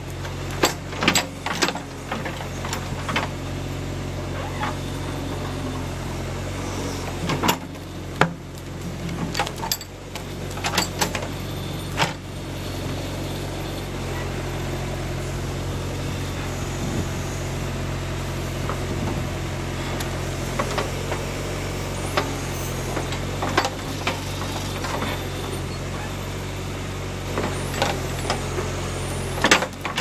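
John Deere 310A backhoe's engine running steadily while the bucket digs out a stump, with sharp clanks and knocks from the bucket working the dirt, frequent in the first dozen seconds and again near the end.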